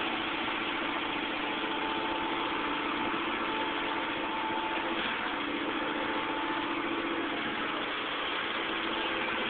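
A vehicle engine idling steadily during the loading of a car onto a tow truck, with a steady higher hum laid over it for a few seconds.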